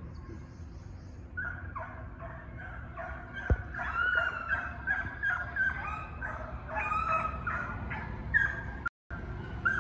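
A pack of Walker foxhounds baying on a fox chase, many voices overlapping, starting about a second in. There is a brief thump partway through.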